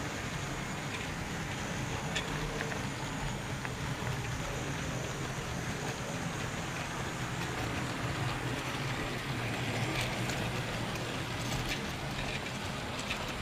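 Model train running on its track, heard from a wagon riding in the train: a steady rolling rumble of wheels on rails with a low hum and scattered small clicks over the rail joints.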